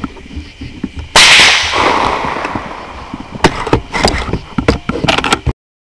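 A single loud blast about a second in, rolling away over about two seconds, then a string of sharp clicks and knocks before the sound cuts off suddenly.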